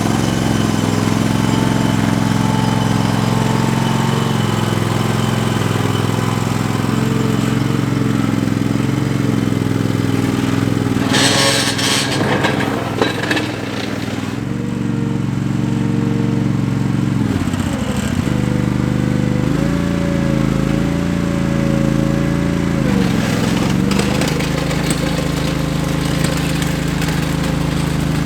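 Engine of a small loader running steadily while clearing snow with its blade and bucket. Its speed dips briefly about two thirds of the way through and then picks up again, and there is a short rushing, scraping noise about 11 seconds in.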